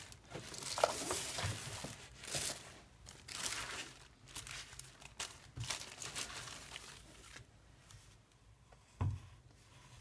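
Thin clear plastic packaging crinkling and rustling as it is handled, in irregular bursts over the first seven seconds. A single thump comes about nine seconds in.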